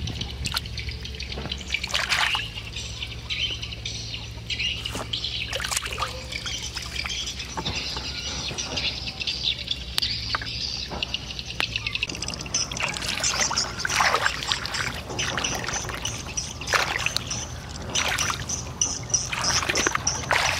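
Shallow water splashing and trickling as a hand gropes through water plants and legs wade through a weedy flooded field, with repeated short splashes and drips.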